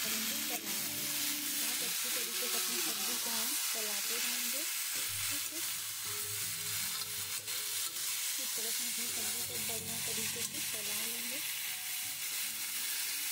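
Chopped karemua (water spinach) greens and potato sizzling in hot oil in an iron kadhai while being stirred, with a steady frying hiss and the spatula now and then knocking and scraping against the pan.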